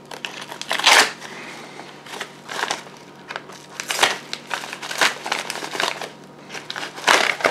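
Plastic mailing bag crinkling and crackling as it is handled and opened, in irregular bursts, the loudest about a second in and another near the end.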